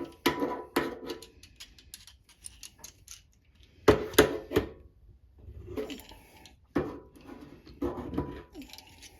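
Steel hand tools clinking and clattering as slip-joint pliers grip and twist a bent part of a pair of locking pliers. The clicks come in short clusters, about six times, each with a brief metallic ring; the loudest cluster is about four seconds in.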